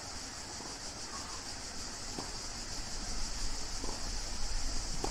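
Steady background hiss of an outdoor tennis court between points, with three faint short knocks spread through the last three seconds.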